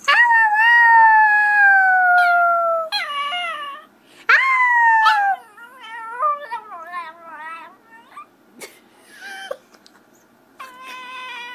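Chihuahua howling. The dog gives a long howl that slides slowly down in pitch, a second howl about four seconds in, then a run of short wavering, yodel-like notes, and a quieter held note near the end.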